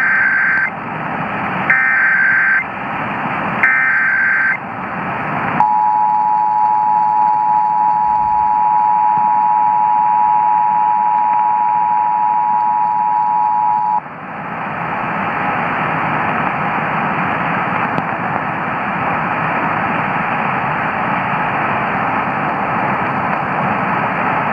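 Emergency Alert System test over AM radio: three short bursts of SAME header data tones, then the two-tone attention signal held steadily for about eight seconds, then only the hiss of AM static. Everything comes through the background static of long-distance AM reception.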